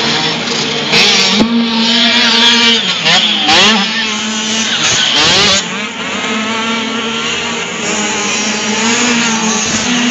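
Several dirt bike engines revving as the motorcycles ride the track, the pitch climbing and dropping repeatedly as riders open and close the throttle, with more than one engine heard at once.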